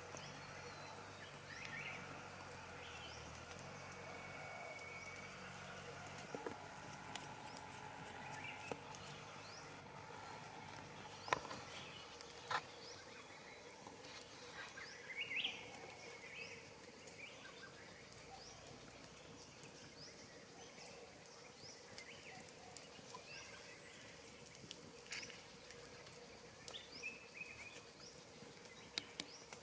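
Quiet forest ambience: scattered short bird chirps, with a few sharp clicks or snaps now and then.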